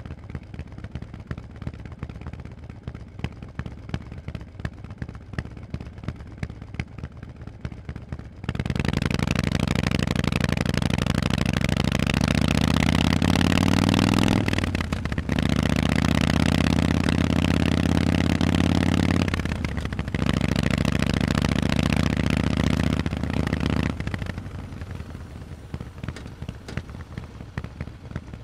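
Harley-Davidson Forty-Eight's air-cooled V-twin through Vance & Hines exhaust pipes. It runs at low revs with a pulsing exhaust beat, then about a third of the way in opens up loudly, the pitch climbing. It is cut twice briefly, like gear changes, and then drops back to low revs near the end.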